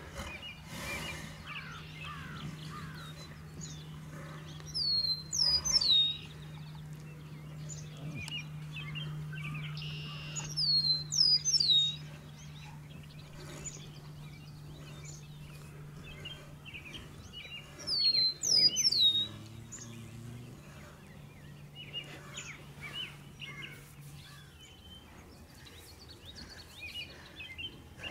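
A songbird repeats a short phrase of quick falling chirps every few seconds, with other faint bird calls around it. A steady low hum runs underneath and stops near the end.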